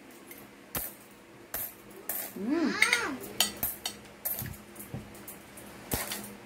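Metal spoon and fork clinking and scraping against a ceramic plate while eating: about six sharp, irregularly spaced clinks.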